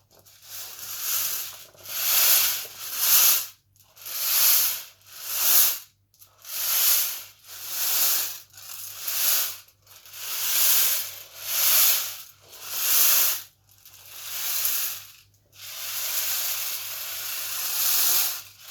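Dry rice swishing and rattling across a tin foil tray as the tray is rocked back and forth, in swells about once a second that run together into a steadier rush near the end.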